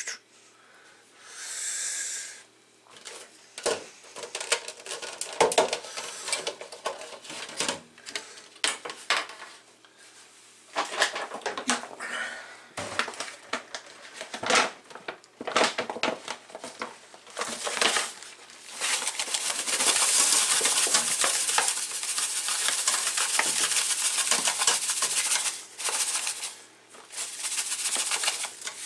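Kitchen handling noises: paper towel rustling and light taps as raw mullet roe is patted dry. Then a steady hiss for about seven seconds as salt is poured into a white tray, and salt is spread around the tray by hand near the end.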